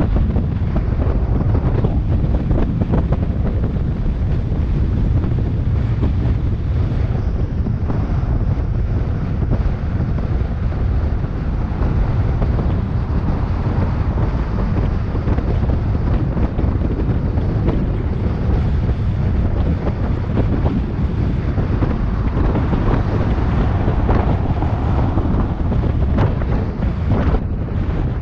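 Wind buffeting the microphone of a bicycle-mounted camera during a fast downhill ride: a loud, steady, low rumbling rush with no breaks.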